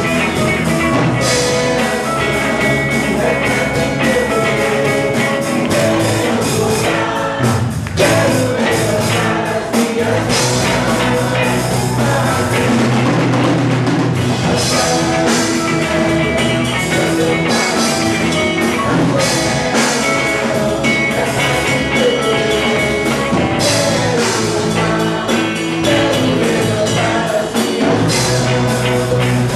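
Rock-style worship band music with drum kit and guitar, playing continuously.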